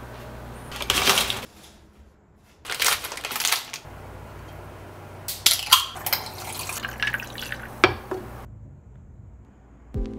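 Kitchen sounds of dishes and a baking tray being handled, then a can of sparkling soda being poured over ice into a glass, with a sharp click near the end.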